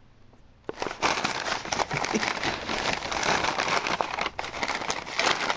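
Crumpled packing paper and a clear plastic bag crinkling and rustling as they are disturbed, a dense crackle that starts just under a second in and goes on without a break.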